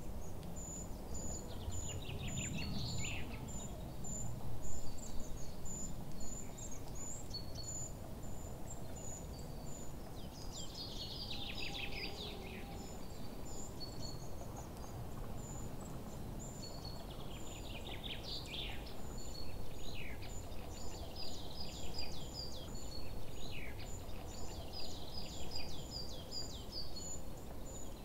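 Outdoor nature ambience: birds calling, with a cascade of descending calls every seven or eight seconds over a steady run of short, high chirps and a low background rumble.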